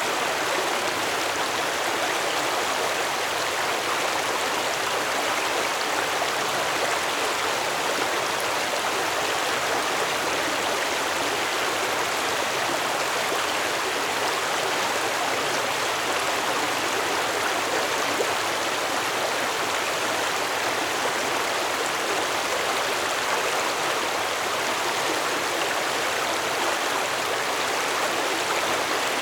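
Stream water flowing over rocks: a steady, even rushing and babbling with no change.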